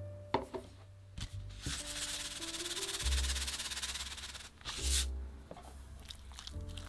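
Salt granules sprinkled from a container onto raw chicken pieces in a glass bowl: a steady grainy hiss for about three seconds, ending in a short louder burst. Soft background music plays throughout.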